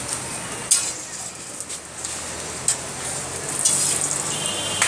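Parathas sizzling in oil on a large flat griddle (tawa), a steady frying hiss. Two sharp knocks stand out, about a second in and again near three seconds.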